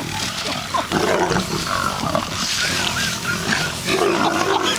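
Several lions growling and snarling over a freshly killed impala, competing for the carcass in a feeding frenzy.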